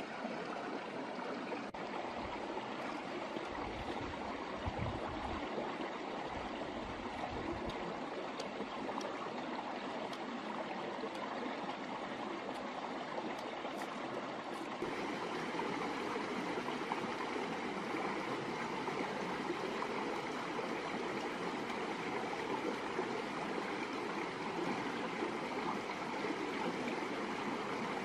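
Rushing water of a rocky mountain stream: a steady, even flow that gets a little louder about halfway through. A few low bumps sound under it about three to seven seconds in.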